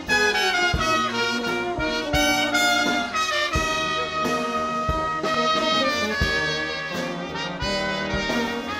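Brass band playing a jazz tune: trumpets and trombone carry the melody over tubas on the bass line, with low thumps of a beat underneath.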